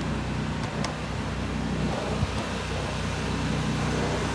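Pressure washer's engine running steadily: a constant low drone with a hiss over it.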